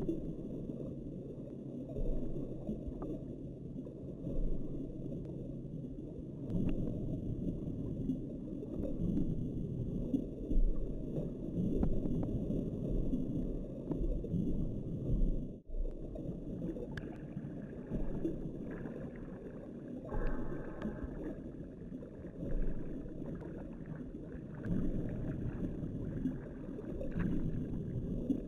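Muffled underwater water noise picked up by a submerged camera: a dense low rumble and sloshing that swells and fades, with faint ticks. It drops out briefly about halfway through.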